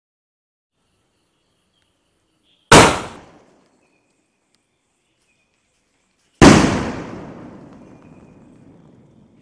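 A 2-inch aerial firework shell: a sharp bang about three seconds in as the lift charge fires it from its tube, then a second loud bang about three and a half seconds later as the shell bursts overhead, dying away slowly over several seconds.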